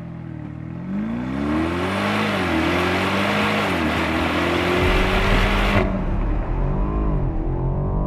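Alpina XB7's twin-turbo 4.4-litre V8 accelerating hard through its quad-tip stainless steel exhaust. The pitch climbs and drops back at each quick upshift of the 8-speed automatic. About six seconds in it is heard from inside the cabin, more muffled, still pulling through the gears with another upshift near the end.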